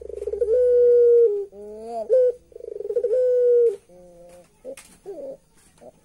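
A caged puter pelung dove (a domestic Barbary dove) calling loudly: a quick rolling stutter that runs into a long, steady coo, then a short rising note and the same stutter and long coo again, with softer calls after about four seconds. This is the rolling call that is known as its "laugh".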